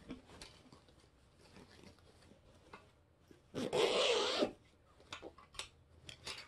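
Kirby cloth outer vacuum bag being handled: a brief rustle of the fabric bag about three and a half seconds in, followed by a few light clicks and taps.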